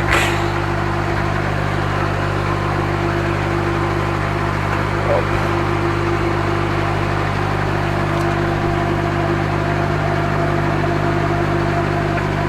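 Diesel truck engine idling steadily, with a brief knock at the very start.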